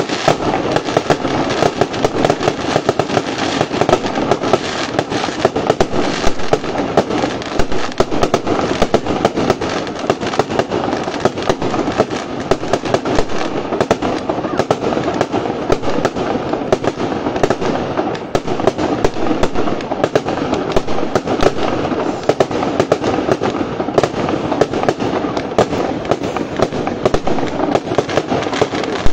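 Fireworks display: a dense, continuous crackle of rapid pops and bursts, with frequent louder bangs throughout.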